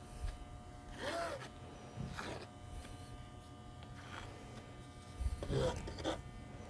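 Plastic spreader scraping wet white acrylic paint across a canvas in a few short strokes, the loudest near the end.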